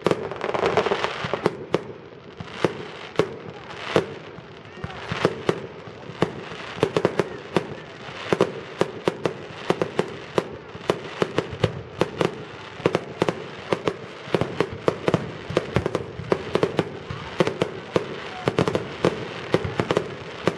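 Aerial fireworks display: a rapid, irregular string of sharp bangs from shell launches and bursts, often several a second and thickening in the second half.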